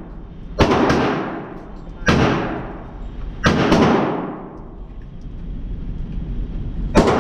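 Four shots from an AR-15-style rifle, fired at uneven intervals with the last near the end. Each is a sharp crack that rings out in a long echo down the enclosed indoor range.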